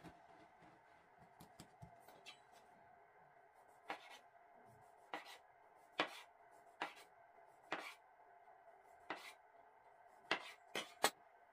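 Chef's knife slicing through a log of soft dough and knocking on a wooden tabletop: about nine sharp, irregularly spaced knocks, the first about four seconds in and the last three close together near the end.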